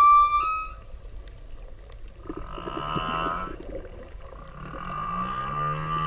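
Whale calls with rich overtones. A loud high call ends about half a second in, a second call comes around two to three seconds in, and a long call begins about four seconds in, rising at first and then holding steady.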